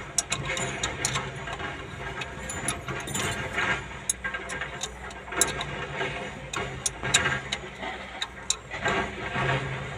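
Irregular metallic clicks and clinks of a spanner working the mounting bolts of a fuel injection pump as it is fitted to an excavator engine. A steady low mechanical hum runs underneath.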